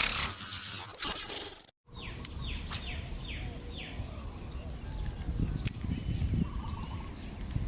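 Birds calling with a series of short, downward-sliding chirps over a low outdoor rumble. The first two seconds, before a brief cut to silence, are a loud hissing rush.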